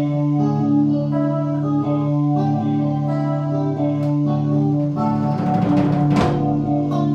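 Live band music: an electric guitar plays held notes and chords through a small amplifier over a drum kit. The drums get busier about five seconds in, with a cymbal crash near six seconds.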